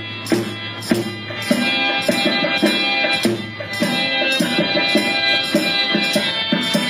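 Music with a beating drum and melodic instruments.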